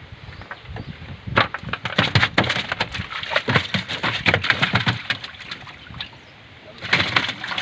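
Rapid wet splashing, spattering and knocking in the water-filled hull of a wooden dugout canoe as a wet nylon cast net with a caught fish is piled in. The busy spell starts about a second and a half in and stops about two seconds before the end, with a short burst again right at the end.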